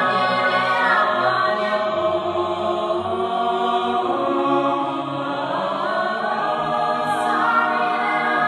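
Choir singing long, held chords.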